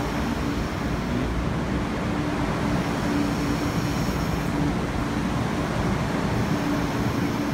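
MTR East Rail Line MLR electric train moving along the platform: a steady rumble of wheels and running gear, with a faint hum coming and going.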